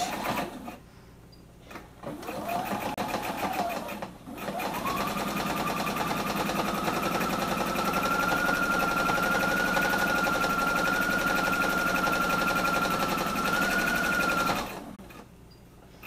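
Electric sewing machine stitching under foot-pedal control. A short run comes about two seconds in, then after a brief pause a long steady run of about ten seconds, its motor whine climbing as it gets up to speed, and it stops near the end.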